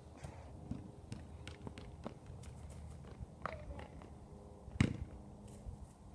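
Faint footsteps on a paved driveway, with a basketball thudding once on the asphalt a little under five seconds in.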